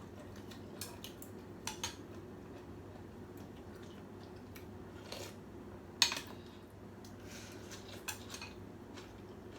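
Spoon and chopsticks clicking against a bowl of pho while eating, a handful of light scattered clicks with the loudest about six seconds in.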